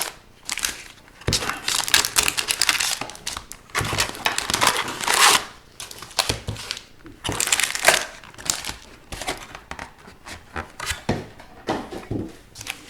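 Crinkling and tearing of plastic wrapping being pulled off a sealed Upper Deck hobby box of hockey cards, in irregular bursts.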